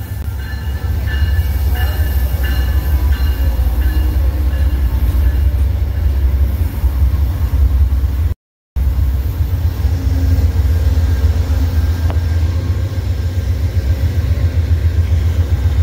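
Amtrak GE P42DC diesel locomotive's engine running with a deep, steady rumble close by at the platform, with faint squealing over the first few seconds. The sound breaks off briefly about halfway through.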